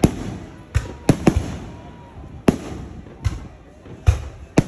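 Fireworks shells bursting in the sky: about eight sharp bangs at uneven intervals, each trailing off briefly.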